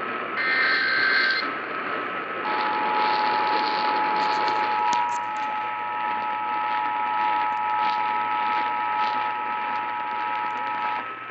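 An Emergency Alert System activation heard over AM radio. First comes a roughly one-second burst of the EAS digital header, the SAME data tones. About two seconds in, the EAS two-tone attention signal (853 and 960 Hz together) starts and holds steadily for about eight and a half seconds, cutting off just before the end. Hiss and a faint steady whistle run underneath.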